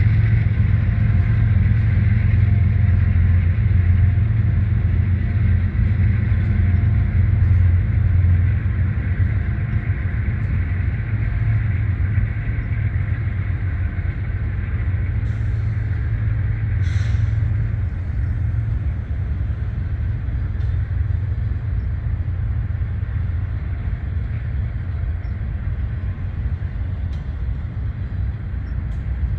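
Diesel locomotive engine idling with a steady low hum, while a double-stack container train rolls past with a continuous rumble. There is a brief sharp noise about 17 seconds in.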